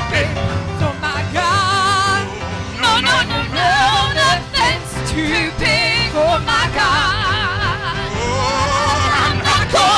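Live gospel music: electric bass, drums and keyboard backing singers who hold long notes with heavy vibrato.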